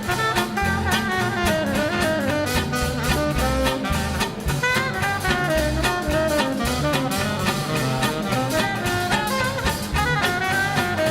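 Small swing-jazz combo playing an instrumental break: a horn carries a gliding melody over a steady drum-kit beat.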